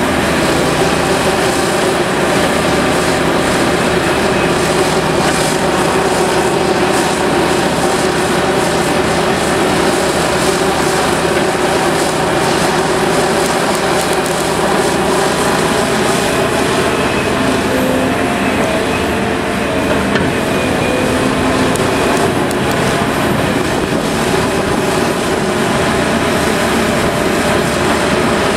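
Heavy diesel engines of a large hydraulic excavator and articulated dump trucks, running steadily and loudly without a pause.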